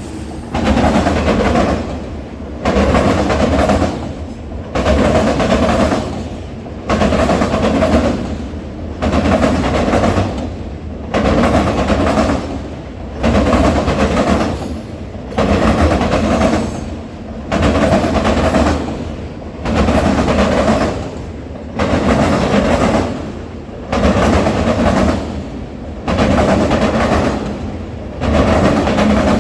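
Railroad cars rolling past, their wheels clattering in a loud cluster about every two seconds as each car's wheel sets cross the same spot on the track, over a steady low rumble.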